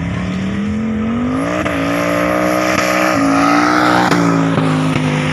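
Street car's engine accelerating hard down a drag strip, pitch climbing and then stepping down a few times as it changes gear.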